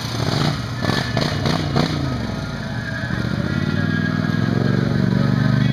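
ATV engine revving up and down in the mud, then running at a steady note that grows louder as the quad approaches.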